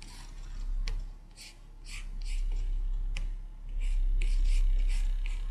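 Short scratchy rubbing and rustling noises, with a couple of sharp clicks, over a steady low rumble.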